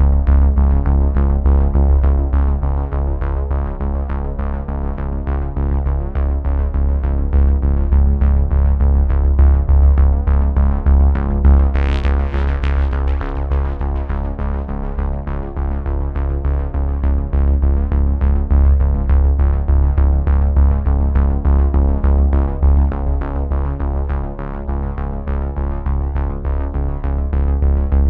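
Background synthesizer music with heavy bass and a fast, steady pulsing beat, with a brief swish about twelve seconds in.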